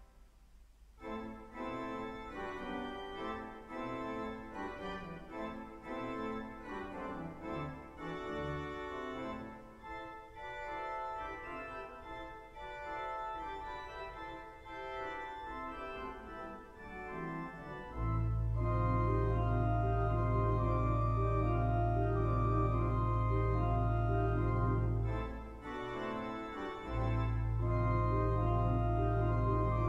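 Pipe organ playing after a brief pause: chords and moving lines at moderate level, then about eighteen seconds in a deep held pedal bass enters and the sound grows fuller and louder, the bass dropping out for a moment near the end before returning.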